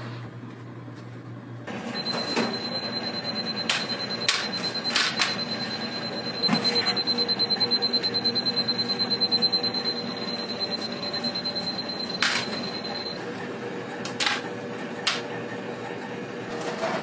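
Convection oven running with a steady high whine that stops about two-thirds of the way through, while metal baking trays knock and clank several times against the oven racks as they are handled.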